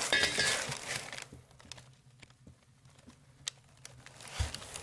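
Handling noise from turbo kit parts being picked up and shown: rustling for about the first second, then scattered light clicks and a dull thump near the end.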